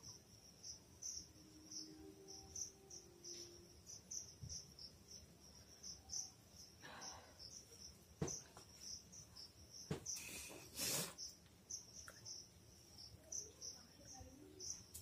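Faint, steady chirping of crickets, a pulsing high trill. About halfway through comes a short breathy burst, and about two-thirds of the way in two louder ones close together: a person blowing her nose.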